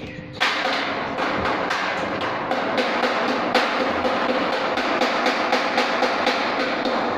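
Background music with a fast, steady percussion beat, starting abruptly just under half a second in.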